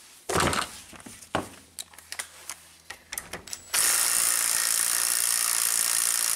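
A few metal clanks and clicks as a socket and extractor are fitted, then a cordless drill starts about three and a half seconds in and runs steadily, spinning a screw extractor to back a snapped starter bolt out of the starter housing.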